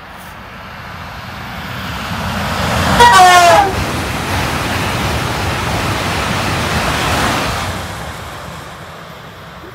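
Southeastern Class 395 'Javelin' high-speed electric train passing at speed and sounding a brief horn blast about three seconds in, the horn's pitch falling as it goes by. The rush of the passing train builds toward the horn, stays loud for a few seconds and then fades away.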